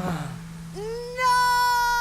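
A cartoon character's long drawn-out wailing cry. It begins about a second in and is held at a steady, slightly falling pitch, while a low hum fades out at the start.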